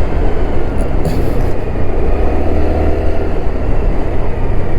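A motorcycle underway: its engine running steadily under heavy wind buffeting on an action camera's external microphone.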